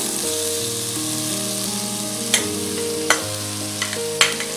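Cooked rice tipped into a hot kadai of oily stir-fried vegetables, sizzling steadily, with a few sharp clicks.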